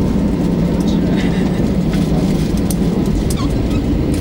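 Steady low drone inside an Airbus A320 cabin with its engines at idle at the end of taxi, with scattered small clicks and faint passenger chatter.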